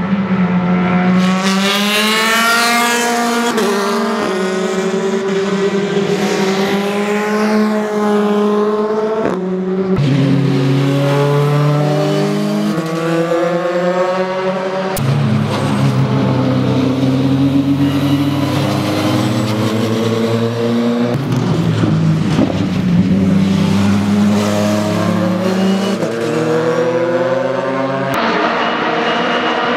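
Racing car engines at full throttle as cars come by on the track, the engine note climbing and falling as they accelerate through the gears, with the sound changing abruptly a few times from one car's pass to the next.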